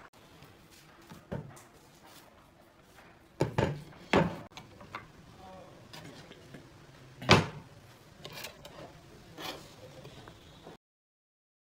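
Pine boards and cut pine pieces being handled and set down on a wooden workbench: a few scattered wooden knocks, the loudest about seven seconds in. The sound cuts to dead silence near the end.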